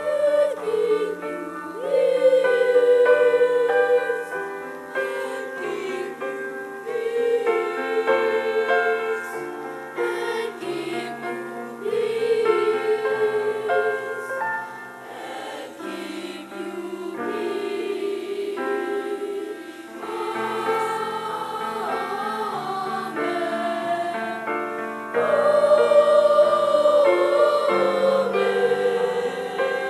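Boys' choir singing a song in several-part harmony, with long held notes. It swells louder about two seconds in and again near the end.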